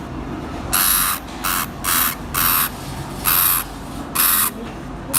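An animal hissing in about seven short, breathy bursts, irregularly spaced half a second to a second apart, over a steady low rumble.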